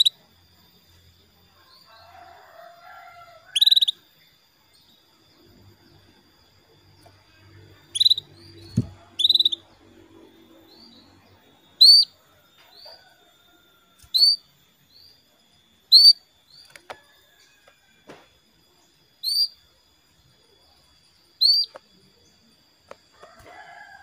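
Female canary calling with single short, sharp chirps, one every two seconds or so, about ten in all. These are the hen's contact calls that stir a male canary to answer and sing.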